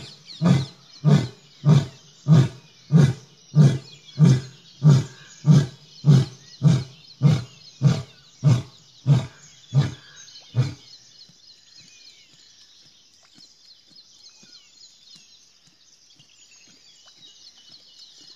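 Lion roaring: a long run of deep, evenly spaced grunts, a little under two a second, that stop about eleven seconds in. Afterwards only a faint high chirping remains.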